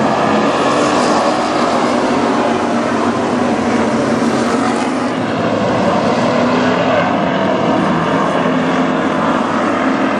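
Several WISSOTA street stock race cars, V8-powered sedans, running at racing speed together, a loud continuous engine drone that wavers slightly in pitch as the cars circulate.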